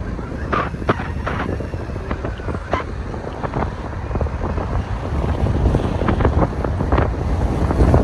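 Wind buffeting the microphone of a moving camera: a steady low rumble, with scattered light clicks and knocks throughout.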